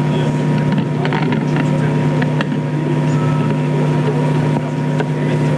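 A steady, loud machine-like hum with several fixed low tones, with scattered faint clicks and knocks over it.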